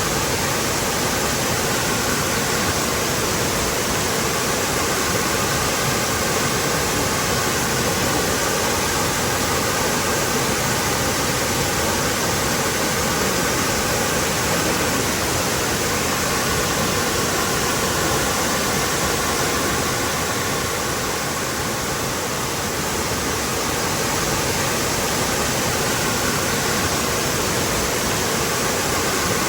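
Waterfall rushing: a steady, full, even roar of falling water.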